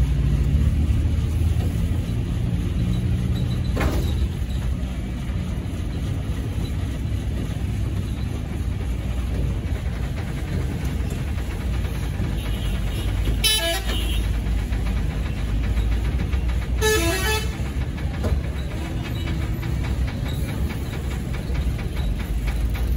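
Heavy diesel truck engine idling with a steady low rumble, and two short vehicle-horn toots a little past halfway, about three seconds apart.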